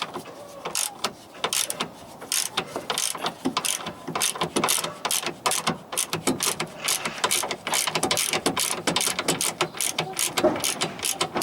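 Hand ratchet wrench clicking in quick, uneven runs as a suspension bolt on a front track control arm is undone.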